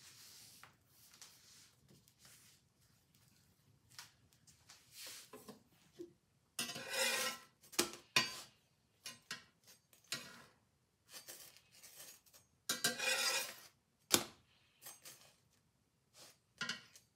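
Slotted metal spatula scraping across a cast-iron skillet twice, each scrape about a second long, while turning a pita, with sharp clinks and knocks of metal on the pan in between. Before that, only faint handling sounds.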